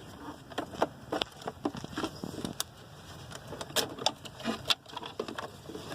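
Irregular small clicks and taps of wires and connectors being handled and hooked up.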